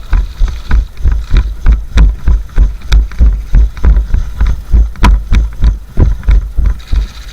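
Heavy, even thumps about three or four a second, the jolts of a player-worn camera as an airsoft player runs, with a few sharp snaps among them.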